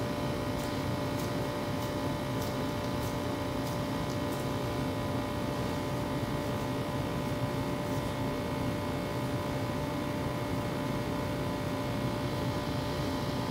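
Steady mechanical hum of a running fan or appliance, carrying several fixed tones, with a few faint light ticks in the first few seconds.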